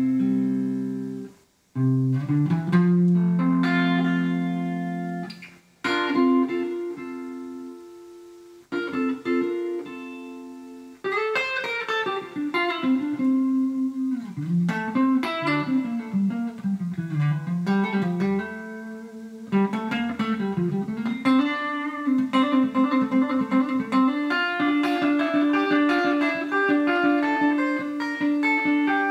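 Electric guitar, a Riggio Tango telecaster-style guitar through a powered amp cabinet, improvising a slow soulful blues in F major in free time. Held, ringing chords with short breaks give way to busier single-note runs over a bass line that falls and rises, then quick repeated notes over a held note.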